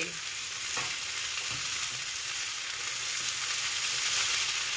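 Diced potato, sweet potato and turkey sausage hash sizzling steadily as it fries in a shallow metal pan, stirred with a utensil, with a couple of faint scrapes of the utensil against the pan.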